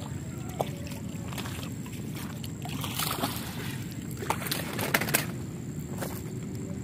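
Hooked milkfish splashing at the surface as it is reeled in, in irregular bursts that are loudest about five seconds in, over a steady low rumble.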